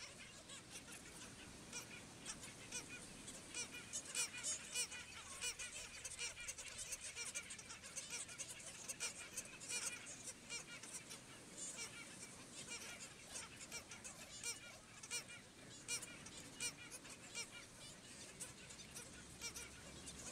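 Black skimmers calling across a nesting colony: many short, overlapping honking calls, busiest around four seconds in and again near the middle.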